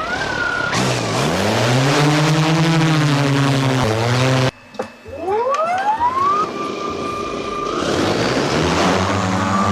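Drone motors and propellers running, with a whine that rises in pitch as they spin up and then holds steady, twice, over a lower hum that rises and falls. The sound cuts off abruptly about four and a half seconds in and starts again.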